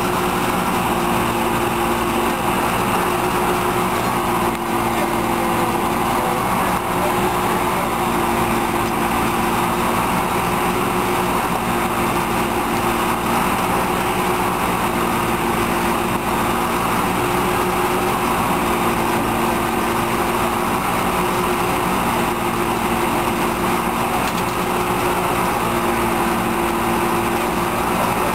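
Small petrol engine of a hydraulic rescue-tool power unit running steadily at a constant speed, an even drone with no change.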